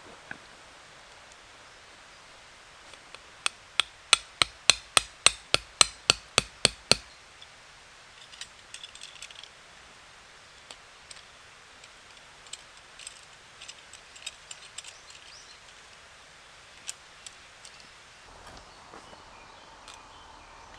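A quick run of about a dozen sharp knocks on wood, a little over three a second, as in chopping or batoning firewood, followed by lighter scattered clicks and taps of wood being handled.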